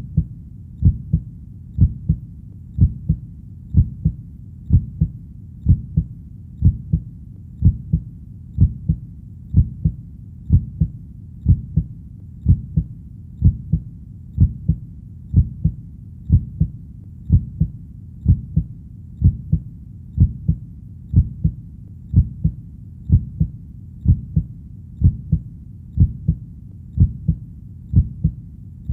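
Human heartbeat, a steady lub-dub about once a second. Each beat is a pair of low knocks, close together.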